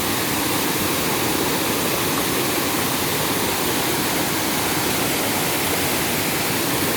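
Waterfall: water falling and rushing over rocks, a loud, steady roar with no change.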